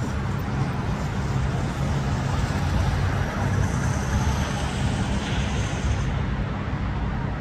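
Cars moving on a city street: a steady rumble of engines and road traffic.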